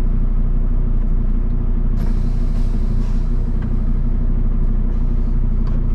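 Kenworth W990 log truck's diesel engine idling steadily, heard from inside the cab. About two seconds in a sudden hiss starts and fades away over the next couple of seconds.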